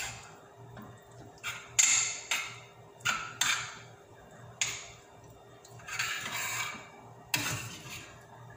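Metal spoon clanking and scraping against a frying pan of cooked ground beef as it is scooped out: a string of sharp clanks with a longer scrape about six seconds in.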